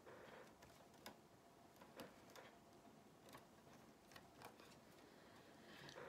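Near silence with a few faint, irregular light clicks as a pipe cleaner is twisted around the sign and the wire wreath frame.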